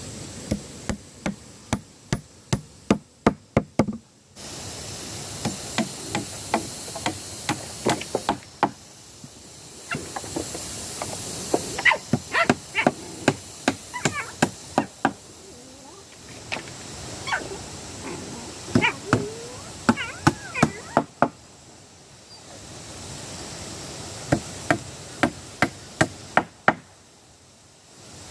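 Repeated sharp knocks, like a tool striking wood, coming in runs of quick strokes, about three or four a second at their fastest, across several short stretches that change abruptly.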